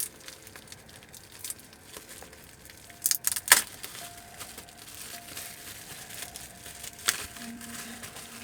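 Plastic kit-parts bag crinkling as it is handled and torn open, with a burst of sharp rustles about three seconds in and another about seven seconds in.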